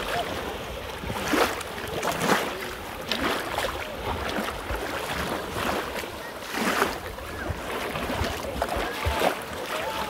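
Shallow sea surf washing up over fine shingle, the water swishing and fizzing through the small stones, with louder splashes of breaking wavelets a little over a second, about two seconds and nearly seven seconds in.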